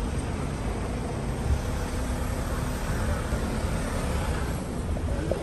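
Steady road traffic noise, a continuous rumble of passing vehicles.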